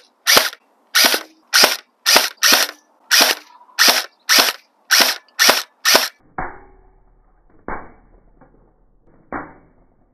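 Umarex HK416 electric airsoft rifle (AEG) firing single shots, about eleven sharp cracks at roughly two a second. After about six seconds these give way to three duller, muffled knocks over a low hum.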